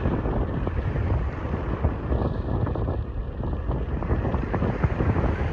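Wind buffeting the phone's microphone, a loud, fluctuating rumble, over the wash of ocean surf around people wading in the shallows.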